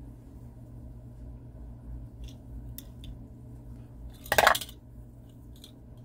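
Small die-cast toy cars being handled: a few faint clicks, then about four and a half seconds in a brief, loud metallic clatter, over a steady low hum.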